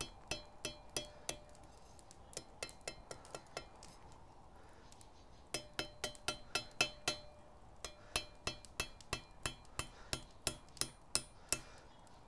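Ball-peen hammer striking the red-hot tip of a thin 6 mm steel round bar on a homemade steel anvil, each blow a short ringing clink, as the point is rolled over. A run of blows, a lull of lighter taps about four seconds in, then a quicker run of two to three blows a second.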